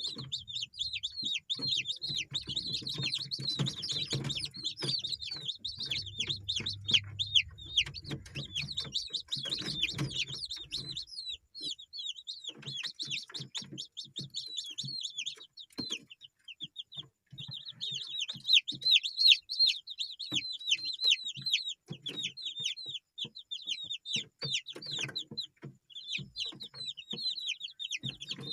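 Village chickens, with many chicks peeping: a dense, high run of short falling peeps with some clucking, pausing briefly twice. A low steady hum sits under the first third.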